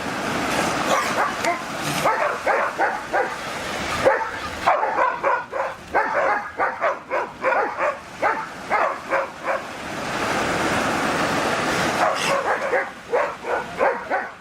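A dog barking and yipping in rapid runs of short barks, several a second, with brief breaks between the runs.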